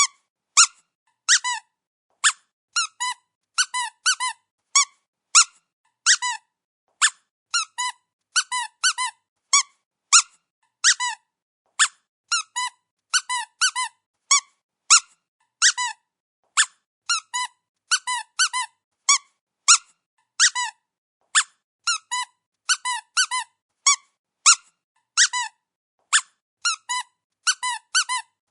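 Dog's rubber squeaky toy being squeezed repeatedly, giving short high squeaks, singly or in quick runs of two to four, with brief silences between.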